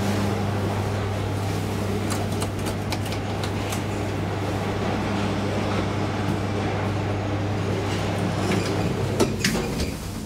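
Traction elevator car arriving and its doors opening: a steady low hum, with a few sharp clicks about two to four seconds in and a louder click near the end.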